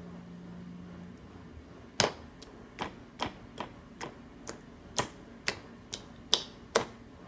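A baby's hands tapping and slapping on a high-chair tray and plate of orange pieces: about a dozen sharp taps, roughly two a second, starting about two seconds in.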